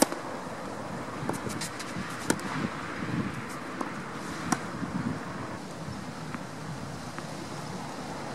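A tennis ball struck hard on a serve right at the start, then a short rally of sharper ball hits and bounces, the loudest about two and four and a half seconds in, over steady wind noise on the microphone.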